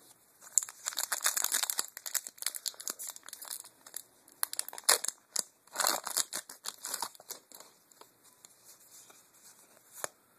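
Foil wrapper of a Magic: The Gathering booster pack being torn open and crinkled, a crackling that comes in bursts, loudest about a second in and again around five and six seconds, then dying down.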